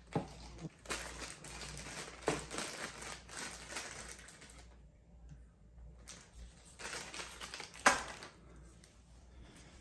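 Plastic bag of resistors rustling and crinkling as it is handled, with small clicks of the parts inside. The rustling is busiest in the first half and thins out, with one sharp click near the end.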